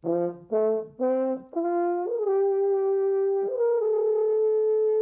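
French horn played by lip buzzing alone, climbing up its natural notes: a quick run of short notes stepping upward, then a long held note and a higher one held steadily.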